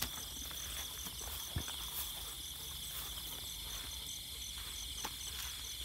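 Night insects chirring: a steady high buzz with a quick pulsing chirp above it, and a couple of faint knocks.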